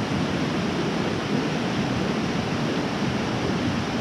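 Mountain river rushing over rocks, a steady even rush of water.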